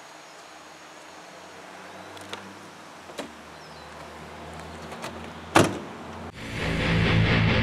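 A Dodge SUV's door clicks open and is slammed shut about five and a half seconds in. Just under a second later, loud heavy metal music with electric guitar starts up.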